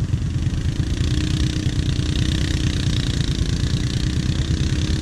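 Kawasaki KVF 750 Brute Force ATV's V-twin engine idling steadily, a fast low pulsing throb.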